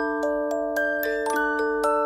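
Background music: a gentle melody of bell-like struck notes on a glockenspiel-like mallet instrument, roughly three to four notes a second, each ringing on under the next.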